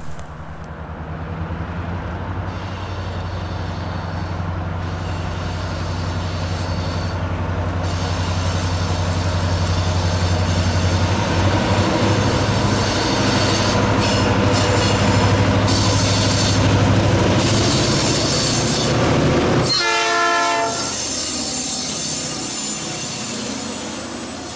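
Norfolk Southern diesel freight train approaching, its locomotive engine making a steady low drone that grows louder. About twenty seconds in, the sound changes abruptly to a train passing close, with a horn sounding.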